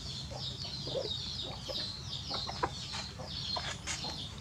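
Chickens peeping and clucking: a continuous stream of short, high, downward-sliding peeps, several a second, with a few lower clucks and soft clicks among them.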